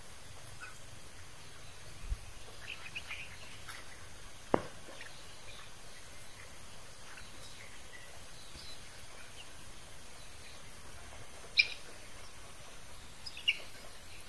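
A few faint, short cheeps from young layer chickens over a steady low background hiss, with a sharp click about four and a half seconds in.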